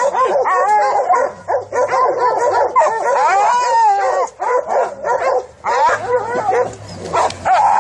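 Several hunting dogs baying and yelping at a bayed wild boar, their high calls overlapping without a break and turning into shorter, choppier barks in the last couple of seconds.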